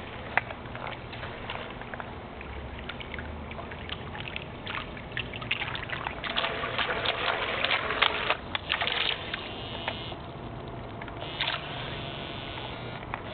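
Battery-powered RC boat running across the water, its hull slapping and throwing spray in a run of splashy crackles that grows loudest through the middle as it passes close, then eases off.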